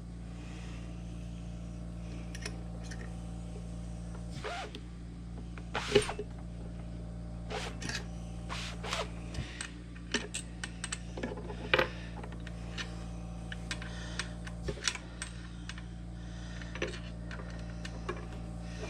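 Small metal parts and hand tools clicking and tapping irregularly during reassembly of a key-cutting machine, with a sharper knock about six seconds in and another near twelve seconds. A steady low hum runs underneath.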